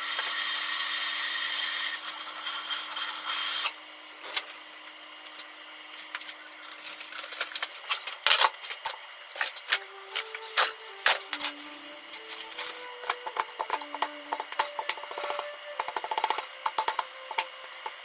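Kitchen work sounds: irregular clicks, taps and scraping of utensils on a countertop and plastic cutting sheet. A loud steady noise fills the first three or four seconds and cuts off suddenly. From about ten seconds in, a simple melody of short single notes plays underneath.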